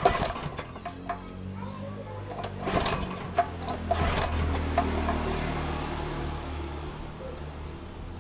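Small Honda GX-series single-cylinder engine running steadily after its carburettor service, preceded by a run of sharp clicks and knocks in the first few seconds.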